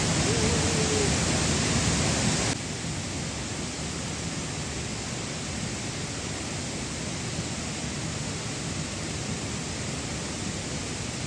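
Steady rushing hiss of flowing water, louder for the first two and a half seconds and then dropping suddenly to a lower steady level.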